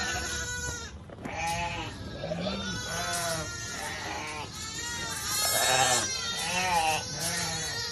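Shetland sheep bleating repeatedly, many calls overlapping, some high-pitched and some much lower, as lambs and ewes call to each other.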